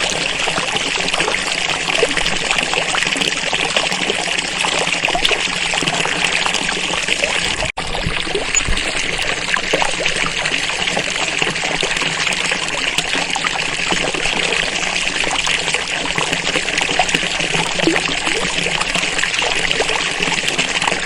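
Falling water splashing in a steady, continuous rush, cutting out for an instant once about eight seconds in.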